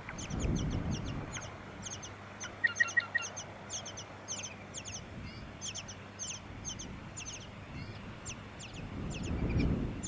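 Tawny-crowned honeyeater nestlings begging: thin, high-pitched calls in quick clusters of two to four, repeated throughout, with a run of four short lower notes about three seconds in. Wind rumbles on the microphone at the start and again near the end.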